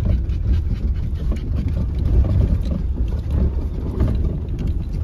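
Land Rover Discovery 3 driving slowly on a rough gravel track, heard from inside the cabin: a steady low rumble of engine and tyres, with small knocks and rattles scattered through it.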